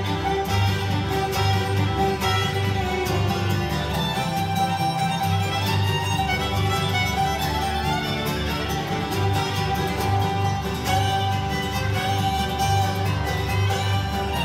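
Acoustic bluegrass band playing an instrumental, the fiddle prominent over banjo, mandolin, acoustic guitar and upright bass, with the bass keeping a steady pulsing beat.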